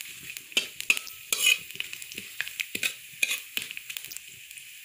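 Sliced onions sizzling in hot oil in a pan, frying until brown, while a spatula stirs them with irregular scraping clicks against the pan.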